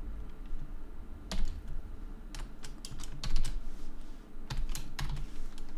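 Typing on a computer keyboard: irregular, separate key clicks.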